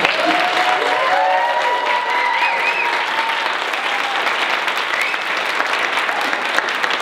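A room full of people applauding, steady dense hand-clapping throughout.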